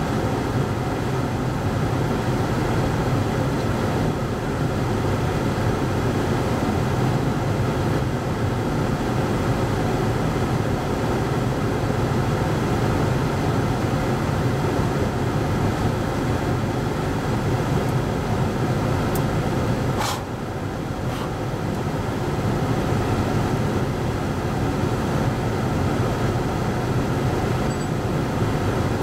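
Hurricane-force wind roaring steadily around a vehicle, heard from inside, with a single sharp click about twenty seconds in.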